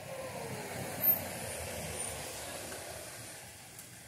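A vehicle passing by: a wash of noise with a tone that falls in pitch over the first second, a brief sharp sound about a second in, then fading away near the end.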